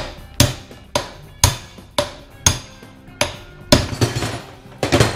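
Hammer blows on steel, knocking a worn universal joint bearing cup out through the prop shaft yoke held in a bench vise. There are about ten sharp metallic strikes, roughly two a second, each with a brief ring, and a quicker rattling run of blows near the end.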